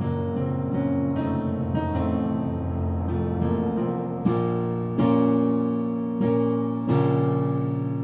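Improvised piano accompaniment: low held notes for the first few seconds, then four loud chords struck about a second apart.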